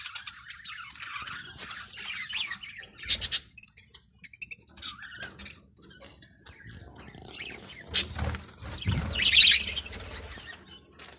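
A flock of budgerigars chirping and chattering: many short, high, overlapping calls, with louder bursts about a third of the way in and near the end.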